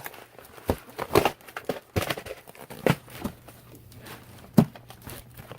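Rustling and crinkling of packaging and cardboard as contents are pulled out of a shipping box, with irregular knocks and a louder thump about four and a half seconds in. A faint low hum runs underneath.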